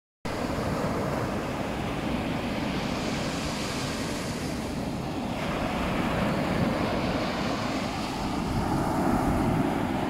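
Small waves breaking and washing up onto a sandy beach: a steady rush of surf.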